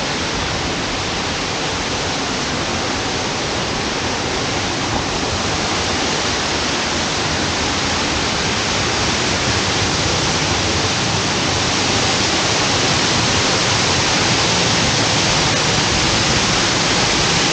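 Waterfall pouring into its pool: a steady rushing hiss that grows slowly louder.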